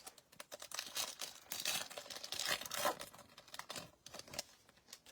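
Crinkly plastic wrapper of a trading-card pack being torn open and handled, a dense run of sharp crackles that thins out and stops near the end.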